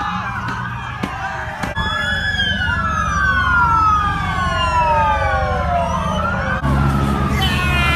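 Police sirens wailing, several overlapping, each pitch sliding slowly down and climbing back up, over the steady low running of a car engine.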